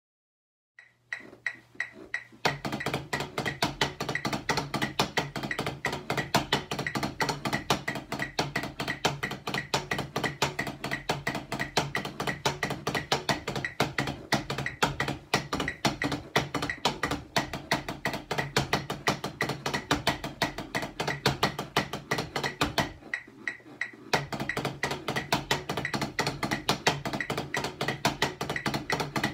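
Drumsticks striking a quad (tenor drum) practice pad setup: a fast, continuous run of sharp taps across several pads. It starts about a second in and breaks off for about a second near the end before resuming.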